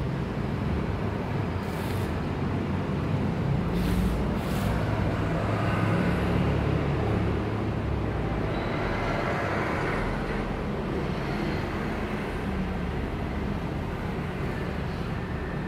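Steady low rumble of background road traffic, with a few faint clicks about 2 and 4 seconds in.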